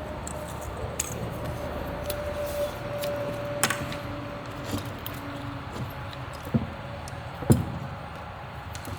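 Scattered metallic clinks and knocks of tools and engine parts being handled, over a steady background hum, with the sharpest knocks about a third of the way in and near the end.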